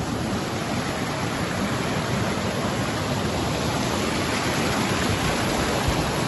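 Mountain stream rushing over rocks: a steady, even rush of running water.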